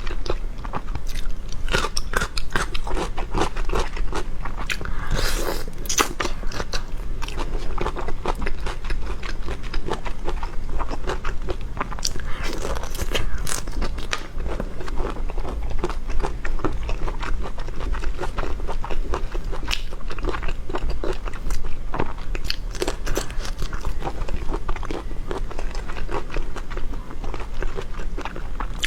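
Close-miked chewing and biting of crunchy food, a dense run of irregular crackles and crunches, over a steady low hum.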